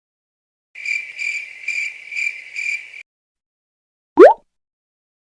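Cricket chirping sound effect: a high, pulsing chirp repeated five times, about two a second, for a little over two seconds. After a second of silence comes a very short, loud rising bloop, the loudest sound.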